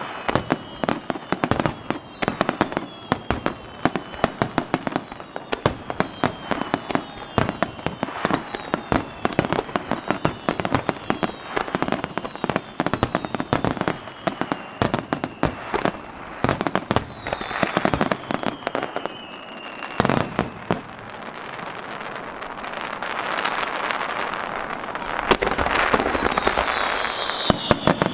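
Star mine fireworks barrage: a rapid string of sharp shell bursts with several falling whistles over them. About twenty seconds in a single big bang gives way to a dense crackling hiss that swells to the end.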